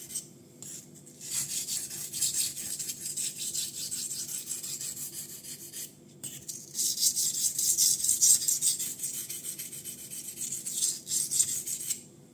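Ganzo Firebird F759M knife's 440C steel blade being stroked over and over on a wet Binsui 1000-grit Japanese natural whetstone, a repeated scraping. This is the 1000-grit stage that works out a slightly bent edge. The strokes break off briefly about half a second in and again around six seconds, and stop near the end.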